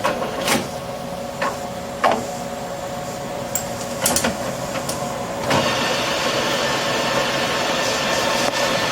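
A few sharp metal clicks and knocks from work at the lathe chuck. About five and a half seconds in, the lathe starts running with a steady whir that holds.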